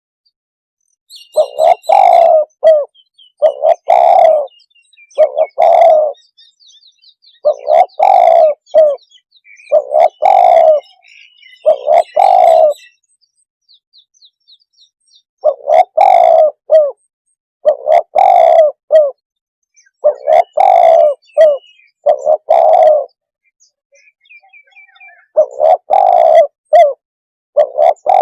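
Spotted dove cooing loud and close: a repeated series of low coos in short two- and three-note phrases, broken by two longer pauses. It is a hunter's decoy call for luring doves. Faint high chirps of other birds sound behind it.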